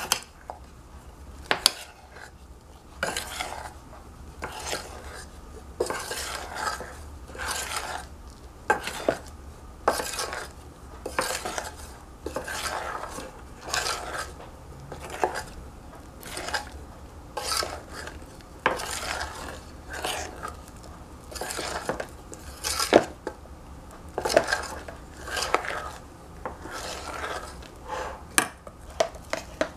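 A metal spoon stirring and scraping round a metal saucepan as beaten cream is folded into melted dark chocolate. The scraping strokes come in a steady rhythm, a little more than one a second, with a few sharp clinks of spoon on pan in the first couple of seconds.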